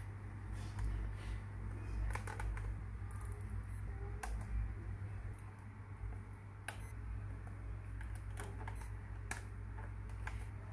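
Irregular light plastic clicks and taps from hands handling an RC car's radio receiver and pushing wire lead plugs into it, over a steady low hum.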